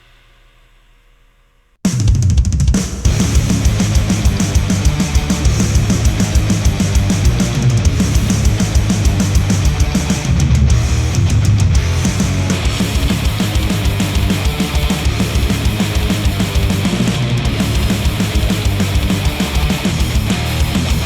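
Music played back through headphones and picked up by microphones: after a near-silent gap, a drum-heavy track with kick, snare, hi-hat and cymbals starts abruptly about two seconds in and carries on loud and dense.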